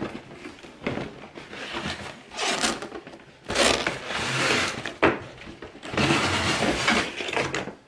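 Cardboard box lid being worked loose and lifted off: cardboard scraping and rubbing in several bursts, with a sharp knock about five seconds in.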